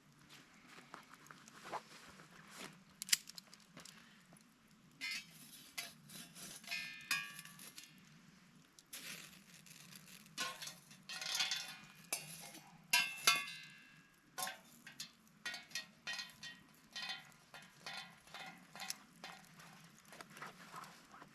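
A run of irregular knocks and small metallic clinks, some ringing briefly, with a busier stretch in the middle.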